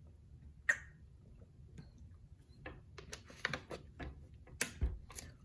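Thin plastic water bottle clicking and crackling as it is drunk from and handled: one sharp click about a second in, then a quick cluster of crackles and clicks in the last two seconds.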